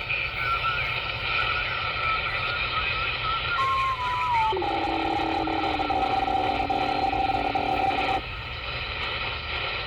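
CB radio receiver hissing with heavy interference. About three and a half seconds in, a steady whistling tone comes in, steps down in pitch and holds, then cuts off suddenly about eight seconds in. The interference is QRM from a nearby station that the operator takes for someone playing music on the channel.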